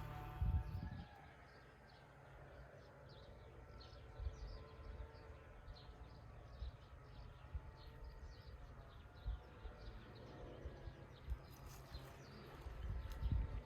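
Faint outdoor nature ambience: many short, high chirps over scattered low thumps and rumbles. A low steady hum cuts out about a second in.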